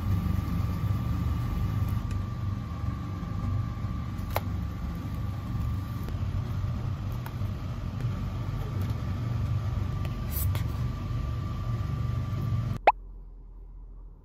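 Kitchen fan running steadily: a low hum with a faint steady whine, and a light tap about four seconds in and again about ten seconds in. The hum cuts off abruptly with a sharp click near the end.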